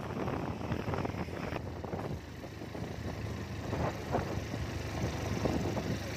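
Motor vehicle running on the move: a steady engine and road rumble.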